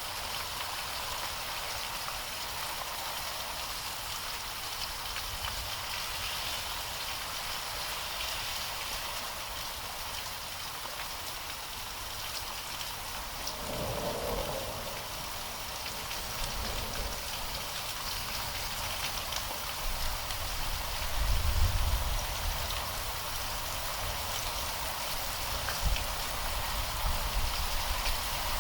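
Steady heavy rain with low rolls of thunder, the loudest about two-thirds of the way through, and a short sharp low clap near the end.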